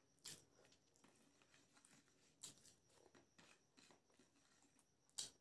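Near silence broken by a few faint clicks and rustles of fingers mixing biryani rice on a plate, the strongest click near the end.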